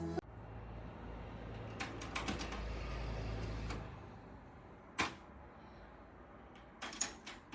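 Technics RS-TR155 cassette deck's transport mechanism clicking and clunking: a quick cluster of clicks about two seconds in, one sharp click about five seconds in and another cluster near the end, with a low hum for the first few seconds.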